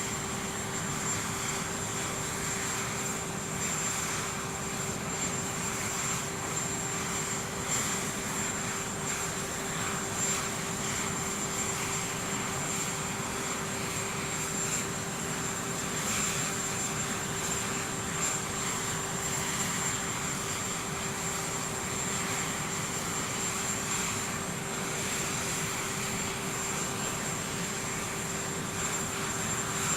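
Aircraft engines running steadily: a constant hum with a high, even whine above it, unchanging throughout.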